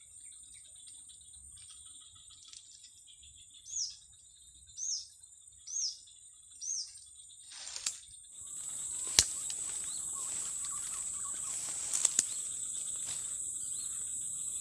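Insects keep up a steady high buzz along the river bank, and a bird gives four short call notes about a second apart. About eight seconds in, the insect buzz grows much louder and stays so, with a few sharp clicks.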